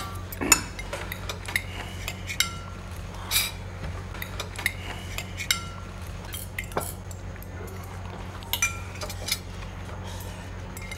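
Cutlery clinking against plates and dishes during a meal: irregular light clinks, a few of them ringing briefly.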